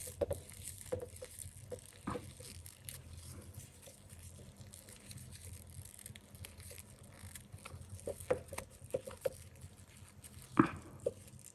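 Paper yarn crinkling and rustling faintly as it is pulled through with a crochet hook, with scattered small ticks. Single crochet stitches are being worked.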